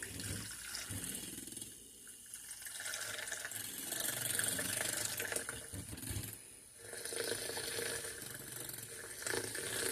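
Stick blender mixing liquid soap batter after fragrance oil has been added: a wet churning sound with a faint motor hum, easing off briefly about two seconds in and again past the middle.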